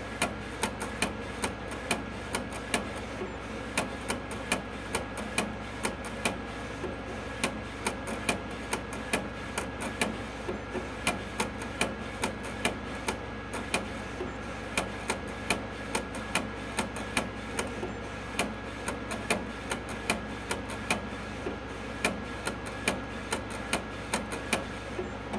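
Primera Eddie edible-ink cookie printer printing, with sharp clicks repeating about two or three times a second over a steady hum.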